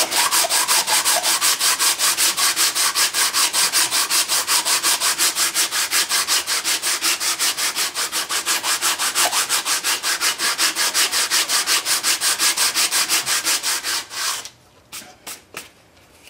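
Coarse 36-grit sandpaper on a handled sanding board rubbed rapidly back and forth over an epoxy-and-metal engine part, about five even rasping strokes a second, flattening the face flush. The sanding stops about two seconds before the end, leaving a few light scrapes.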